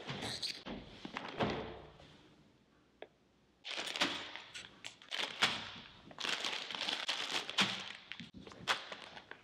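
Sealed plastic bags of Lego pieces being handled and dropped onto a cloth-covered surface: crinkling plastic with thuds and sharp clicks of the loose bricks inside. A short burst comes at the start, then a pause, then steady crinkling and clicking from about three and a half seconds in.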